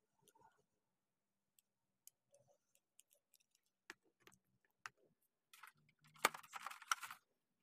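Light scattered clicks and taps of a plastic action figure and its staff being handled and posed, then a louder rustle lasting about a second and a half near the end as the figure's box is moved.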